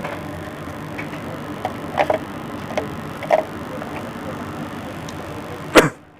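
Hot-air rework station blowing with a steady hiss while metal tweezers tap and click lightly against the laptop motherboard, softening the solder of the NEC Tokin capacitor. Near the end a sharp loud click, and the hiss cuts off.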